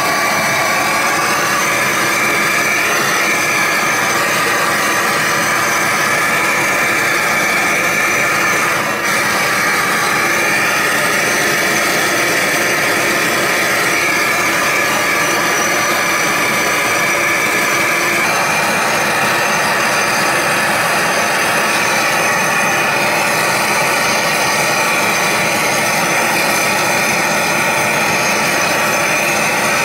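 Gas blowtorch burning steadily as it heats a copper boiler shell for silver soldering, with a slight change in its tone about 18 seconds in.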